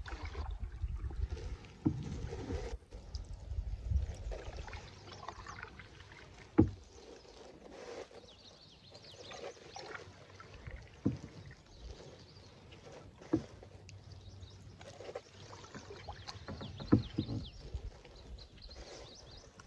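Canoe paddling on calm water: soft swishes and drips of paddle strokes, with several sharp knocks of the paddle striking the canoe's side. A low rumble of wind on the microphone runs through the first three seconds.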